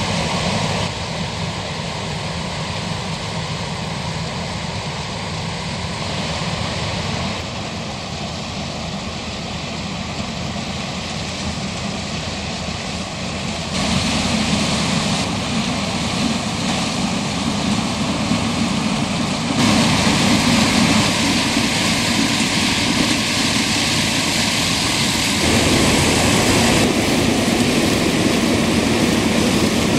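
Heavy farm machinery running steadily: the diesel engine and threshing works of a combine harvester cutting corn, and a tractor hauling a grain trailer. The sound shifts suddenly in loudness and tone about every six seconds, louder in the second half.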